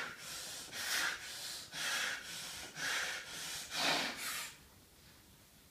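A weightlifter breathing hard, about one forceful breath a second, while setting up over the bar between reps of a heavy deadlift set. The breaths stop about four and a half seconds in.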